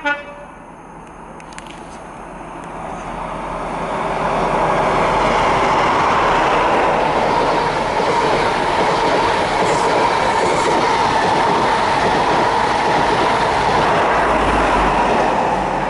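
Midland Pullman HST, a Class 43 power car and blue Pullman coaches, running through the station at speed. The rush of the train swells as it approaches over the first few seconds, then stays loud and steady as the coaches pass close by.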